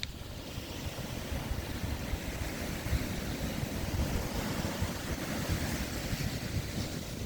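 Ocean surf washing onto the beach, its hiss swelling through the middle, with wind buffeting the microphone in a gusty low rumble.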